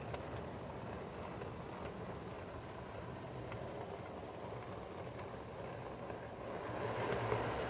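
Train running along the track, a steady rumble with scattered clicks of wheels over rail joints and points, growing louder near the end.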